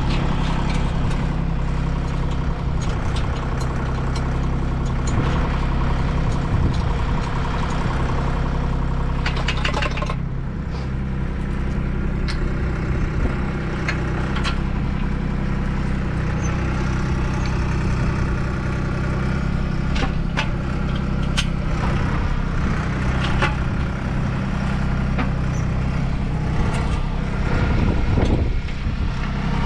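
A motor vehicle engine idling steadily, with scattered sharp metallic clicks and clanks as aluminium solar-panel mounting rails are handled.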